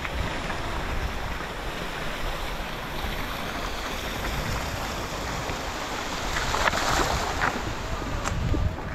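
Mountain bike rolling over a dirt trail: a steady rush of tyre noise and wind on the microphone, with a few short rattles a little before the end.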